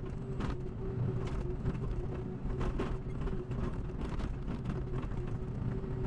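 Hydraulic excavator's diesel engine running steadily under digging load, with a steady whine above its hum, as the bucket cuts into wet soil with frequent small knocks and scrapes.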